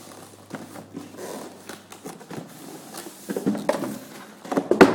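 Cardboard box and polystyrene packing being handled and pulled out: rustling and scraping with scattered knocks, busier toward the end, where the loudest knock falls.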